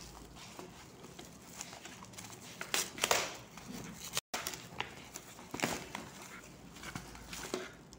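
Plastic and paper postal packaging rustling and crinkling in scattered handling crackles as it is peeled open by hand and an inner packet is pulled out, the loudest crackle about three seconds in.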